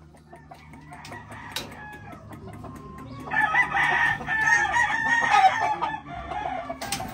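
A gamecock rooster crows once, a long crow starting about three seconds in and lasting nearly three seconds. Before it there are a few light clicks and rattles.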